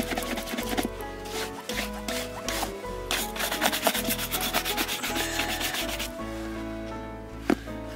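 Quick repeated scrubbing strokes on the welt of a leather Red Wing boot. The strokes break off about six seconds in, and a single sharp knock follows near the end.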